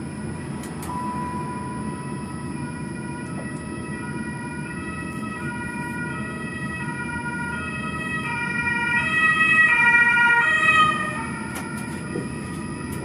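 Emergency-vehicle siren sounding in stepped tones as it approaches and passes, growing louder to a peak about three-quarters of the way through and then fading, over the steady low rumble of a tram cab.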